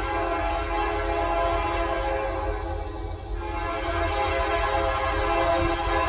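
Diesel locomotive's air horn sounding one long, steady multi-note chord, thinning briefly about halfway through, over a low rumble.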